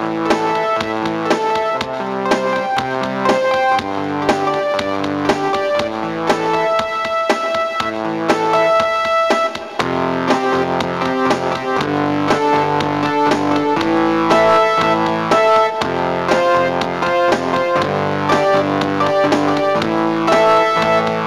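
Background music played on electric piano and keyboards, with a steady rhythm of notes and a brief drop about halfway through.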